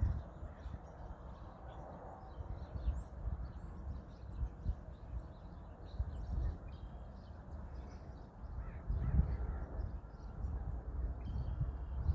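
Wind buffeting the microphone in uneven low gusts, strongest about nine seconds in, with many birds chirping and calling.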